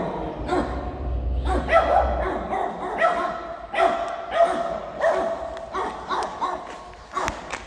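A dog barking and yapping repeatedly, a quick run of short barks at roughly two a second.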